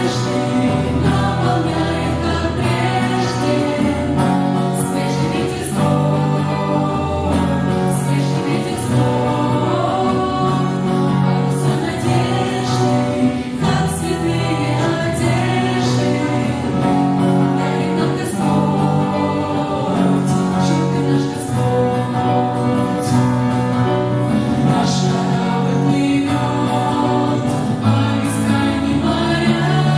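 Choral singing with musical accompaniment, in the manner of gospel or church music.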